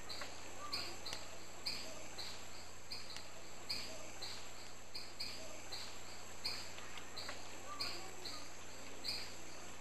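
Tropical riverside forest ambience: a short, high chirp repeated about twice a second over a steady high insect drone.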